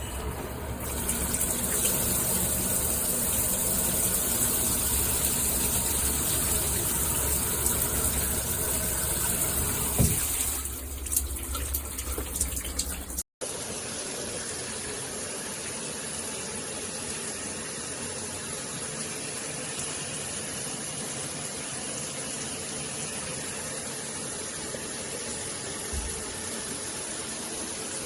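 Water spraying steadily from a shower head with a loud hiss. About thirteen seconds in it cuts off abruptly and a quieter steady hiss follows.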